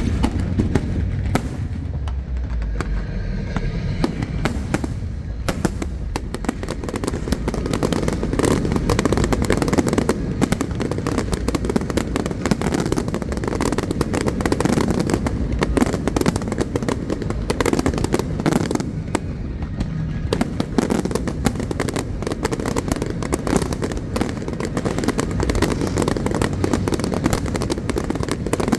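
Aerial fireworks going off in a dense, rapid barrage of crackles and bangs with deep booms underneath.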